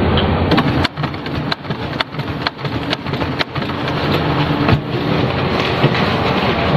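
Office document scanner running: sharp mechanical clicks about twice a second, then a steadier running sound of the feed mechanism.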